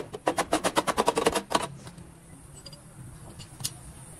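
A small hammer tapping rapidly on the steel of a car's rocker panel repair, about eight sharp metallic taps a second, stopping about a second and a half in. After that a low steady hum remains, with a single click near the end.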